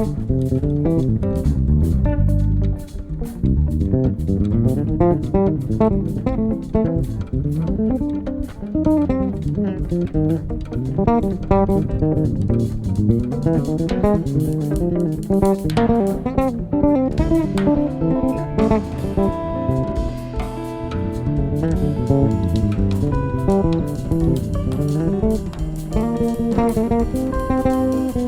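Instrumental jazz trio playing live: guitar playing melodic runs over bass and drum kit.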